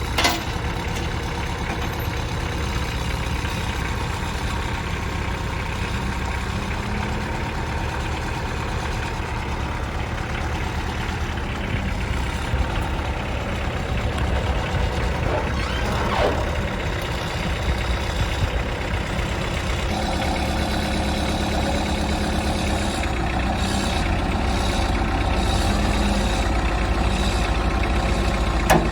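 Heavy diesel engine running steadily under light load, its note shifting slightly about twenty seconds in.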